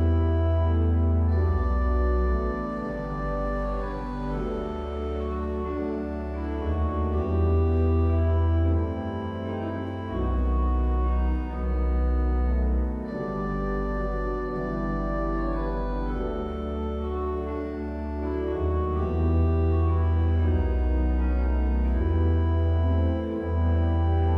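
Church organ playing full, sustained chords over a deep pedal bass line that moves to a new note every second or two.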